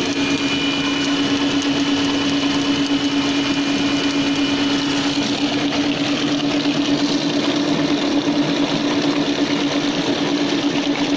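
Electric drive motor of a prototype solar e-banca running steadily under power, turning its propeller shaft, with a strong steady hum. A high whine is heard over it for the first few seconds and then stops.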